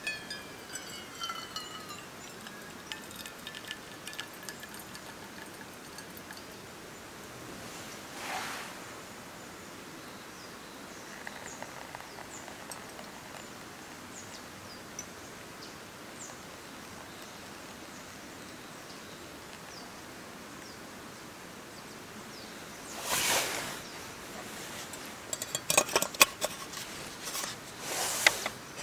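Hot water trickling in a thin stream from a camping cook pot onto a drip-bag coffee in a tumbler. Near the end come a few louder rustles and sharp clicks of handling.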